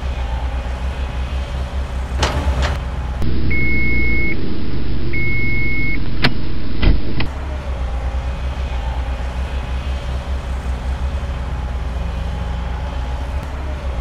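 Construction-machine sound effect: a diesel engine running with a steady low throb. About three seconds in, a louder stretch adds two long reversing-alarm beeps and a couple of sharp clicks.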